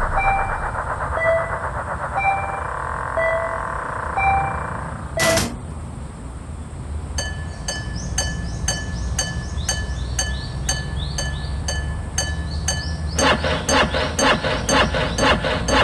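Railway level-crossing warning bells ringing in a repeating pattern over the low rumble of a passing train. A sharp click comes about five seconds in; then the bell changes to an even strike of about two to three a second with falling chirps, and near the end to a dense, rapid ringing.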